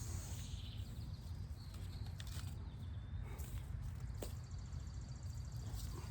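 Faint outdoor garden background: a steady low rumble with insects chirring, and a few soft clicks or knocks.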